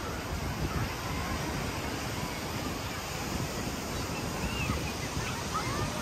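Steady wash of ocean surf with wind rumbling on the microphone. A few faint, distant high calls rise and fall near the end.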